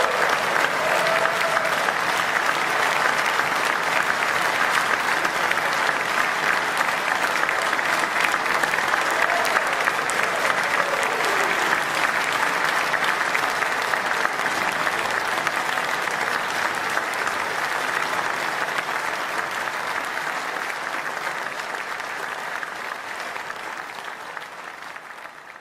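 Concert-hall audience applauding steadily, the applause fading away over the last several seconds.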